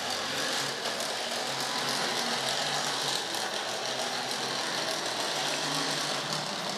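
Tri-ang Blue Pullman model train motor bogie running under power on the track, its small electric motor and gears whirring steadily with the wheels rattling on the rails.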